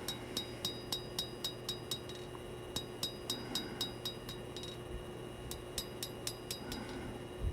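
Hammer striking a thin steel knife blade on an anvil while forging the bevel: light, ringing clinks at about four blows a second, in three runs with short pauses between them. A faint steady hum lies underneath.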